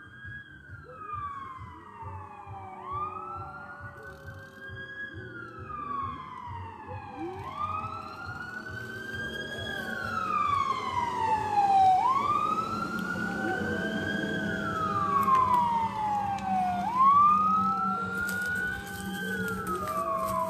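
An emergency vehicle's siren wailing in slow rising and falling sweeps, one about every four to five seconds, growing steadily louder as it approaches.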